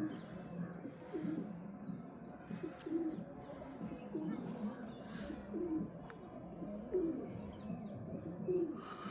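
Pigeons cooing over and over, one low call following another about once a second.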